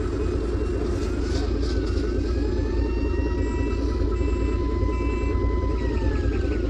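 River car ferry's engines running with a steady low rumble. A high whine rises about a second in, holds for several seconds and falls away near the end, with a few short beeps sounding above it.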